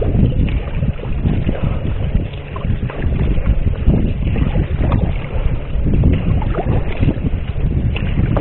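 Sea kayak being paddled: the paddle blades dip and splash about once a second over water lapping at the hull, with heavy wind buffeting the microphone.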